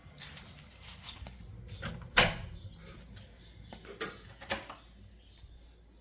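A metal-framed glass door being handled: one loud knock about two seconds in, then two lighter knocks about four and four and a half seconds in.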